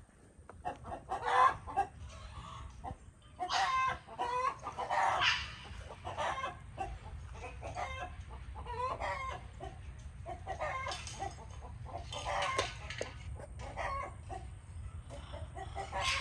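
Chickens clucking and calling, a run of short pitched clucks throughout with a few louder, drawn-out calls, over a steady low rumble.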